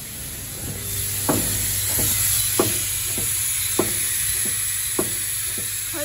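Automatic corner-connector screw assembly machine running: a steady low hum and a high hiss, with sharp mechanical clacks at an even beat of a little under two a second from about a second in.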